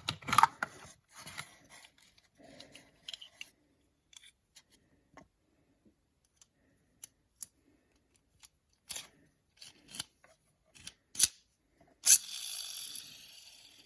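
Unboxing a Beyblade X top: scattered sharp clicks and rustles of packaging being handled, then a louder stretch of about a second and a half of cutting or tearing near the end.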